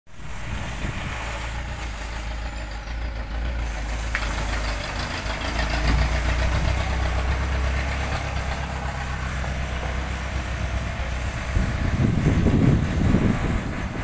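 Heavy truck engine running with a steady low rumble as the truck carries a crawler bulldozer on its flatbed; the engine grows louder near the end as the truck moves off.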